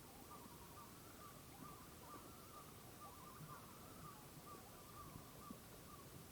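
Common loon calling faintly: a long series of short wavering notes, a little over two a second, on a steady pitch.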